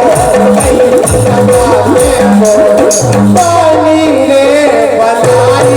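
Music from a folk-style song: a wavering melody over sustained bass notes, with a regular percussion beat.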